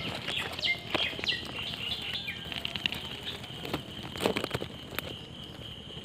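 Night outdoor ambience: a steady high-pitched insect trill, a few short chirps in the first half, and scattered rustles of dry leaves and twigs, the loudest about four seconds in.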